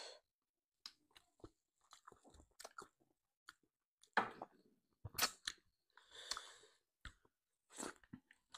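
Close-miked eating sounds of people chewing food eaten by hand: scattered soft mouth smacks, clicks and crunches, with a few louder ones in the second half.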